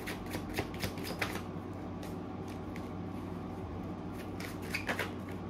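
A tarot deck being shuffled by hand: a run of quick card clicks in the first second and a half, then quieter, and another short flurry near the end, over a steady low hum.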